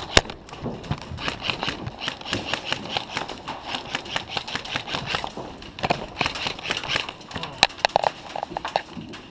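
Running footsteps pounding several times a second, with a few sharp snaps standing out, one just after the start and another near the end.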